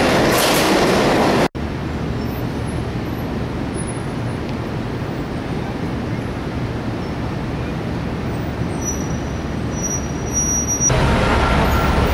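Steady city street traffic rumble, cut in abruptly about a second and a half in after a louder, noisier sound. Near the end it cuts to a louder sound carrying a steady pitched tone.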